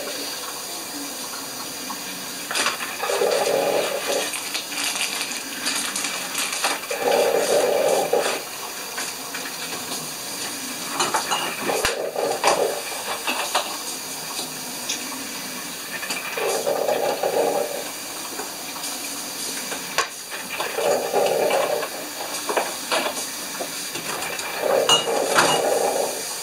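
Drip coffee maker brewing: a gurgling, hissing spurt about every four seconds as the water heats and pushes up, with clinks and knocks of food and dishes being handled.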